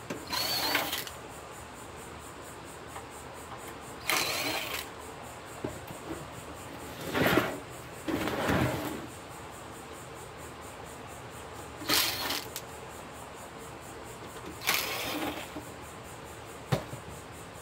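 Cordless drill-driver run in about six short bursts, each a second or less, backing screws out of a metal equipment chassis.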